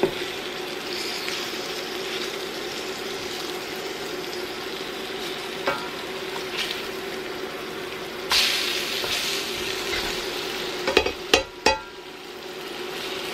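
Floured liver cutlets frying in coconut oil in a stainless steel skillet, a steady sizzle. A spatula scrapes under the pieces and knocks against the pan several times near the end as they are flipped.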